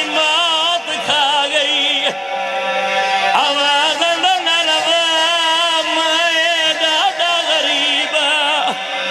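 A man singing a mournful, melismatic chant with a strong, fast vibrato on long held notes and a few sliding changes of pitch.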